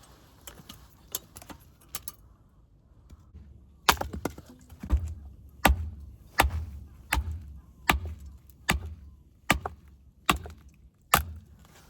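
Firewood being chopped with an axe: a steady series of sharp wooden knocks, about one every three-quarters of a second, starting about four seconds in.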